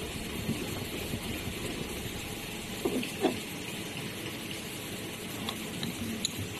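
Steady hiss with a few light clicks and knocks: two close together about three seconds in, and faint ticks near the end.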